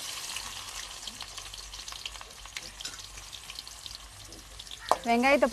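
Chopped onions sizzling in hot oil and popped mustard seeds in an aluminium kadai: a steady frying hiss with many small pops, setting in as the onions go into the oil.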